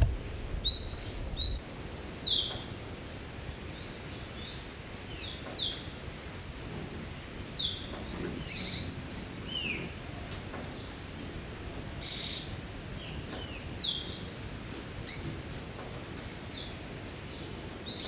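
Wild birds calling: a steady run of short, high chirps and quick downward-sweeping whistles from several birds, over a faint steady background noise.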